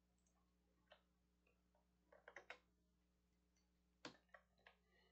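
Near silence broken by a few faint computer-mouse clicks: one about a second in, a quick run of clicks around two and a half seconds, and several more near the end.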